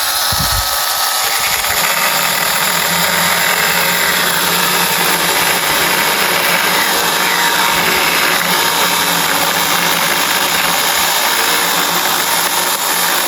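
Makita DUC150Z cordless pruning saw, a battery-powered mini chainsaw, running steadily with its chain cutting into wood.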